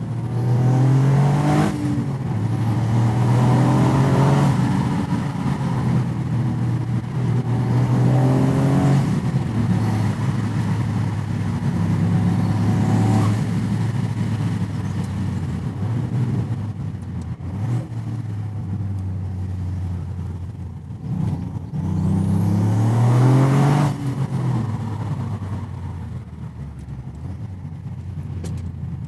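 Toyota GR Yaris turbocharged 1.6-litre three-cylinder engine heard from inside the cabin through an aftermarket airbox intake, accelerating hard through the gears with the pitch climbing and breaking off several times. At each lift-off a short whoosh comes from the blow-off valve venting.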